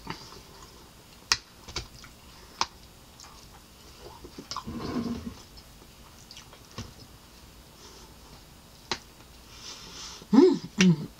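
Quiet eating sounds close to the microphone: a few sharp, isolated clicks of chewing and utensils while a meal of eggs, sausage and cherry tomatoes is eaten. There is a brief low voice sound about halfway through and a short burst of speech near the end.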